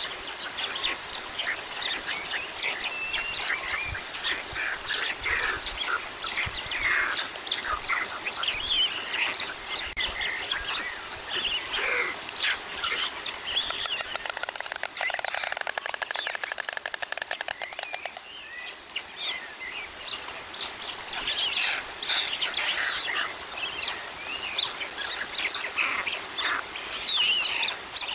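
Small birds chirping and twittering over a steady hiss of rain. About halfway through, a white stork clatters its bill in a rapid, even rattle lasting about four seconds.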